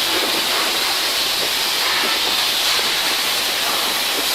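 Oxy-fuel cutting torch flames on a cutting carriage, hissing steadily while cutting.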